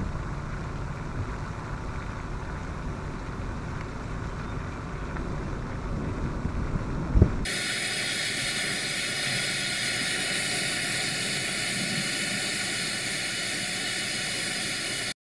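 Low rumble of a vehicle driving with wind buffeting, and a single sharp thump about seven seconds in. Then the sound switches abruptly to a steady hiss of strong tornado wind, which cuts off just before the end.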